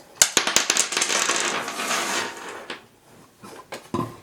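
Metal machine parts clattering and scraping on a workbench: a quick run of sharp clicks, about two seconds of rattling scrape, then a few light knocks near the end.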